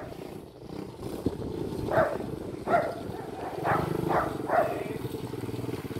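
Small dirt bike engine running steadily, growing louder from about three and a half seconds in as the bike comes closer. A dog barks about five times, between two and five seconds in.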